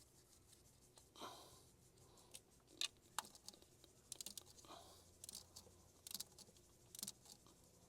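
Click-type torque wrench clicking over again and again as bolts are tightened to 106 inch-pounds, some clicks in quick runs. Brief rustling of handling in between.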